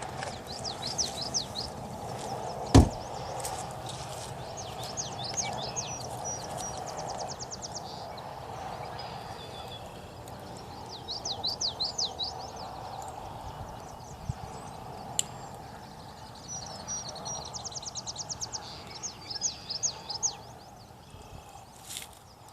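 A songbird singing four times, each song a rapid run of high chirps ending in a buzzy trill, over steady background noise. A single sharp knock about three seconds in is the loudest sound.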